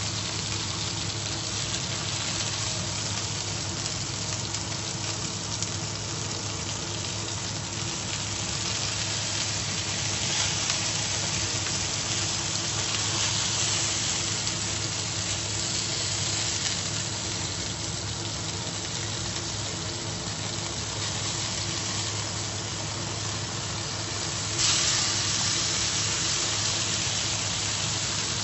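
Beef steak sizzling in a nonstick frying pan, a steady frying hiss that gets suddenly louder near the end.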